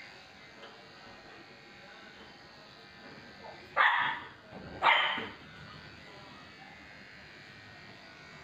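Electric dog grooming clippers running steadily while a dog barks twice, about a second apart, a little under four seconds in.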